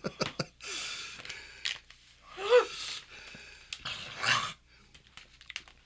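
A woman's pained vocal reactions to the burn of a Carolina Reaper pepper: a long breathy exhale about a second in, a short wavering groan a moment later, then another sharp breath.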